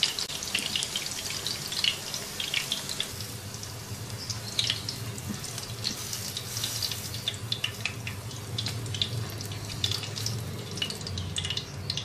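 Chicken koftas frying in shallow oil in a nonstick pan: a steady sizzle with many small crackles and pops.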